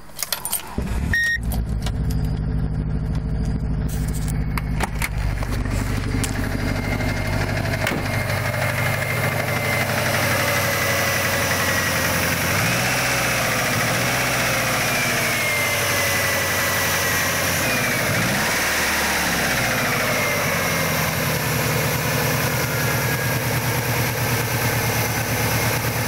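Subaru EJ25D 2.5-litre flat-four, at 243,000 miles, cranking and catching about a second in, then running at idle. It has the knocking sound that rises and falls with the revs, which the owner takes for piston slap.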